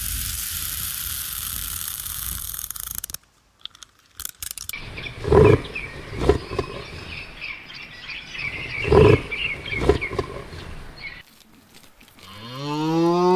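Several short animal sounds in turn: a steady hiss for about three seconds, then a few clicks, then four loud low calls with higher chattering behind them. Near the end a cow begins a long moo, rising in pitch at its start.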